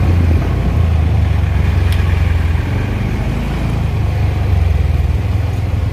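Scooter engine running at low speed while riding along a street, with a steady low rumble.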